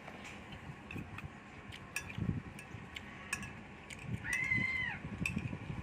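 Eating sounds: wet smacking clicks and soft chewing thumps. About four seconds in, a short high call rises and then falls for under a second.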